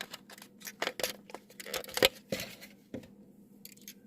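Small cardboard box and plastic packaging of a diecast model car being handled and opened: a quick run of crinkles and clicks, the loudest about two seconds in, dying down after about three seconds.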